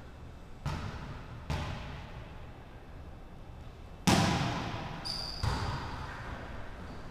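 Volleyball being struck in an echoing gymnasium: two lighter thuds in the first second and a half, then a loud, sharp slap of the serve about four seconds in, followed by a brief high squeak and another hit as the ball is played.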